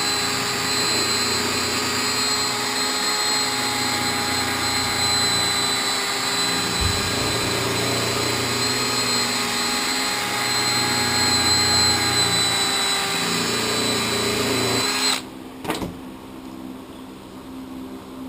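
Makita cordless drill spinning an abrasive pad over the lip of a brake caliper cylinder to clean it, running steadily at one speed, then stopping abruptly about fifteen seconds in.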